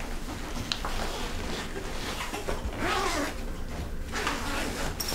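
Zipper rasps and fabric rustling as a bag is opened and searched through, with a sharp click about a second in.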